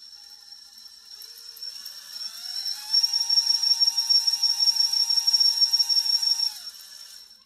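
Team Brood Riot S 2000kv sensorless brushless outrunner, run on AM32 firmware through a Wraith32 35A ESC, spinning the crawler's belt drive and wheels in the air on a 3S test. Its whine rises in pitch over the first few seconds, then holds steady over a constant high whistle. It winds down near the end.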